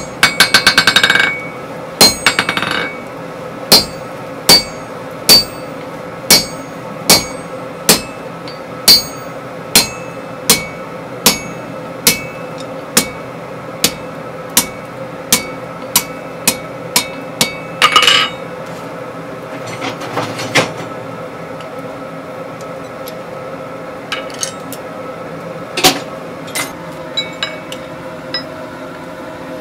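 Hand hammer striking red-hot steel on an anvil, each blow ringing; steady blows a little faster than one a second, with quick rolls of light taps at the start and again just past halfway. The strikes thin out to a few lighter taps near the end, over a faint steady hum.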